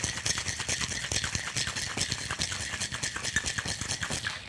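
Ice cubes rattling inside a capped cocktail shaker being shaken hard: a fast, steady rattle of many small knocks that stops right near the end.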